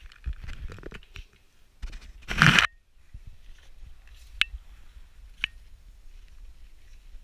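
A cat brushing against a camera resting on a wooden floor and playing nearby: scuffs and knocks, with a loud rustling scrape about two and a half seconds in. Later come two single sharp taps on the floor.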